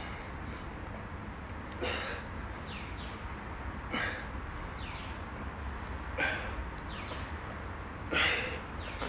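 A man breathing out hard in time with seated dumbbell raises: four sharp exhalations about two seconds apart, the last the loudest, over a low steady hum.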